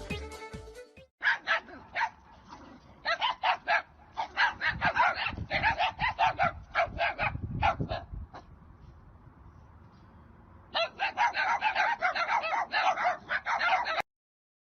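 A dog barking in quick runs of short barks, with a pause of about two seconds before a last fast run that cuts off abruptly near the end.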